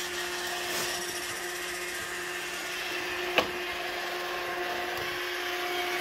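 iRobot Roomba 650 robot vacuum running: a steady whir from its vacuum and brush motors, with one sharp knock a little over three seconds in as its bumper hits an object.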